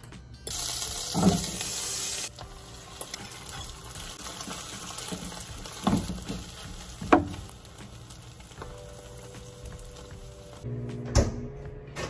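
Egg beaten with chopped greens frying in a hot nonstick pan: a loud sizzle starts suddenly about half a second in and settles to a quieter steady frying hiss. A metal fork clinks and scrapes against the pan a few times while stirring.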